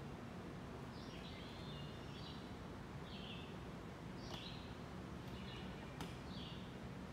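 A songbird calling repeatedly in short high phrases about once a second, over a faint steady low rumble. Two sharp clicks come in the second half.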